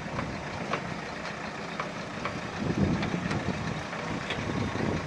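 Diesel engine of heavy road-construction machinery running, a low uneven rumble with scattered short knocks and clicks.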